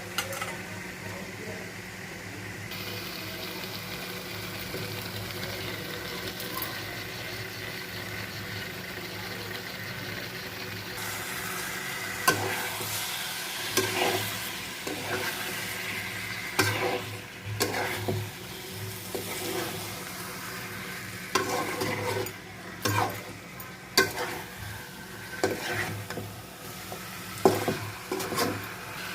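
Curry masala frying and sizzling in a pan with a steady hiss. From about twelve seconds in, a utensil stirs it, scraping and knocking against the pan again and again.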